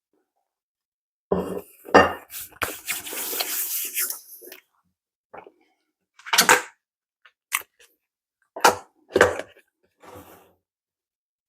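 Cutlery and crockery clattering: several sharp knocks of a knife against a plate, with a stretch of scraping about two to four seconds in.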